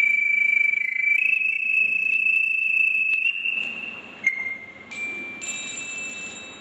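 Panpipes playing a slow, high melody of long held notes: one note sustained for about two seconds early on, then softer, shorter notes stepping lower after about four seconds.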